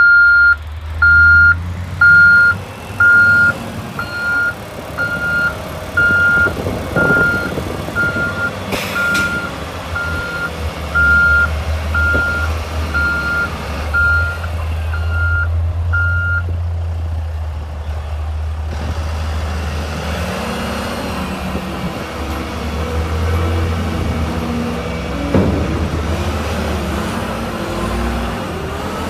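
Volvo A40E articulated dump truck's diesel engine running steadily while its reversing alarm beeps about once a second, the beeping stopping about sixteen seconds in. The engine runs on as the dump body is raised and lowered.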